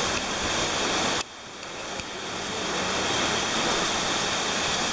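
Waterfall rushing steadily down a rock face into a pool. About a second in the sound drops abruptly, then swells back up over the next two seconds.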